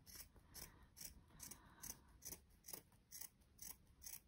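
Scissors snipping through a folded piece of fabric: a quick, even run of small quiet cuts, about three to four a second.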